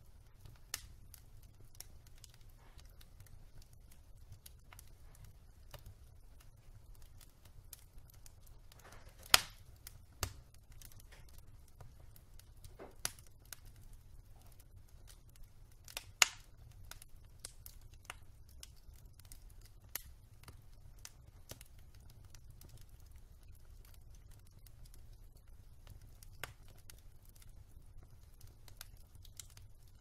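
Wood logs burning on a fireplace grate, crackling with scattered sharp pops over a faint low rumble. The two loudest pops come about nine and sixteen seconds in.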